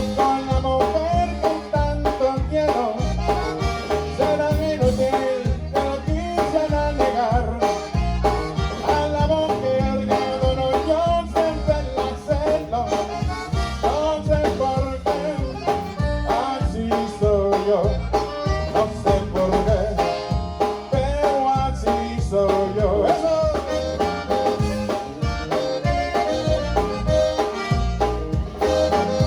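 Conjunto band playing live: an accordion carries the melody over a steady bass and drum beat, with no singing.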